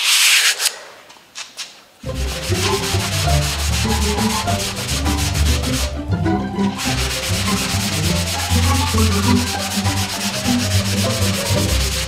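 Hand block sanding with 80-grit sandpaper on a long sanding block over cured plastic body filler (Bondo): steady back-and-forth rasping strokes, leveling the filler for primer. A short papery hiss comes first, and the strokes begin about two seconds in, with a brief pause in the middle.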